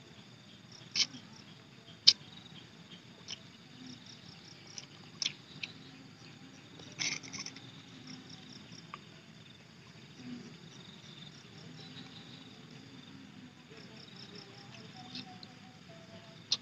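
Eating sounds of grilled frog being picked apart and chewed: scattered sharp mouth clicks and smacks, the loudest about two seconds in and a cluster about seven seconds in. Insects chirp steadily in the background with short repeated high pulses.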